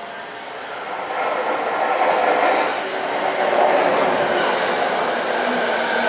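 E217-series electric commuter train pulling in, its wheel and rail noise swelling from about a second in. Steady whining tones of its Mitsubishi IGBT-VVVF inverter come through as it slows.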